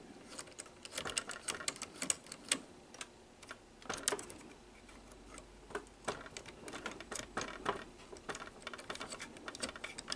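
Irregular small clicks and ticks from the cassette-loading mechanism of a Sony SL-100 Betamax VCR as it is worked by hand; the cassette housing is binding.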